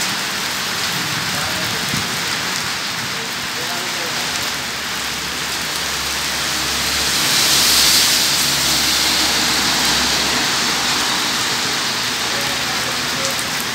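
Steady rain falling on a wet road and pavement, swelling louder for a few seconds around the middle.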